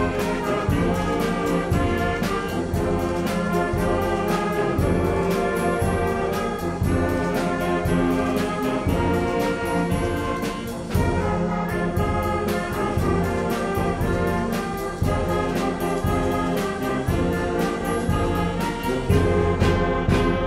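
A student concert band playing: trumpets and other brass carry sustained chords, joined by clarinets, over regular percussion strokes.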